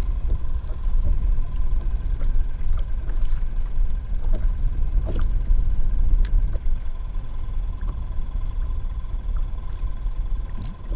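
Wind buffeting the camera microphone with a steady low rumble, while small waves lap against the kayak hull. A few sharp knocks sound in the middle.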